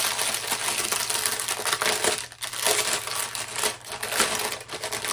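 Plastic packaging crinkling and rustling as a bundle of bagged diamond-painting drills is handled, with a few short breaks.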